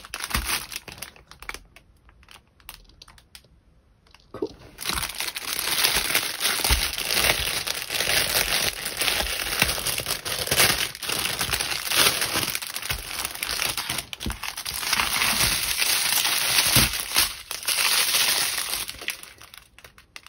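Small plastic bags of diamond-painting drills being picked up and handled, crinkling. It starts softly with a few light clicks and becomes a loud, continuous crinkling from about four seconds in.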